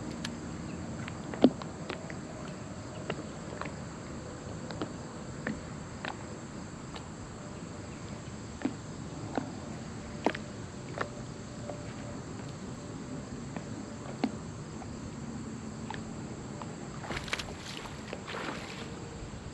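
Light clicks and knocks from the angler and tackle on a fishing boat's deck, scattered and irregular over a steady hiss, with one sharper knock about a second and a half in and a short rustle near the end.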